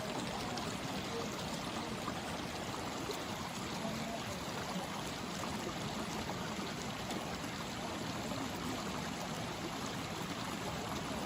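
Mountain stream running steadily, an even rush of water.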